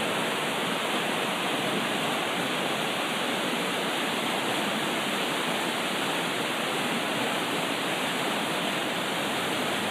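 Creek running high, close to flood stage: a steady, unbroken rush of fast-moving water.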